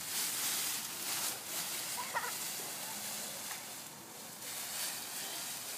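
Dry fallen leaves rustling and crunching as a child rolls and thrashes in a leaf pile, heaviest in the first second or so and again in the middle, with a short high child's cry about two seconds in.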